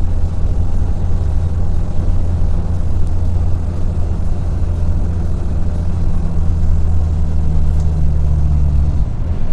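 Heavy truck's engine droning loudly inside the cab, with a deep hum that swells about six seconds in and drops away near the end. It is a noise the driver cannot place: he wonders whether the air compressor is cutting in or the cooling fan.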